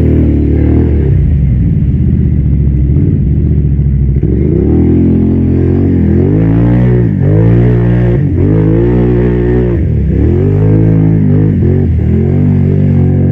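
Quad bike (ATV) engine revving hard under load in deep mud, its pitch dropping and climbing back several times as the throttle is worked.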